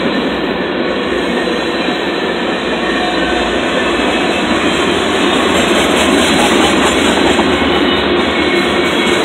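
Freight train tank cars and covered gondolas rolling past, a steady rumble of steel wheels on rail.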